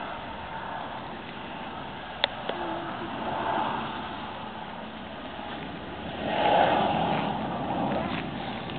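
Jet engines of an airliner on landing approach: a steady rush of noise that swells louder about six seconds in, with a single sharp click about two seconds in.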